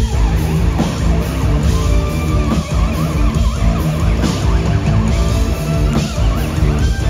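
Live heavy metal band playing loudly, with distorted electric guitars over a steady drum beat and bass.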